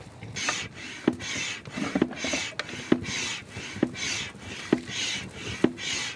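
Inflatable dinghy being bailed in steady strokes, about one a second and some seven in all: each stroke is a rasping rush of sound that ends in a sharp knock.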